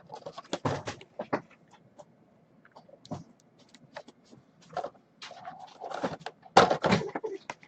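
Pet dog stirring: scattered clicks and rustles, with a short whine about five seconds in.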